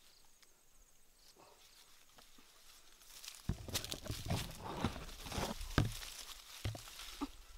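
Tree leaves and twigs rustling and crackling as branches are pushed aside and handled. It is faint at first, then about halfway through a run of irregular rustles and sharp cracks sets in.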